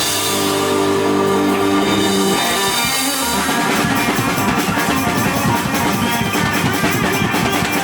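Live rock band playing instrumentally on electric guitar and drum kit. A chord is held for the first couple of seconds, then the drums come in with a steady beat.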